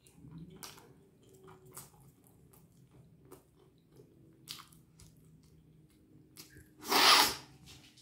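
A person chewing a crunchy breaded rice corn dog with her mouth closed: soft mouth sounds with a few crisp crunches. About seven seconds in there is one loud sneeze, which she puts down to an allergy.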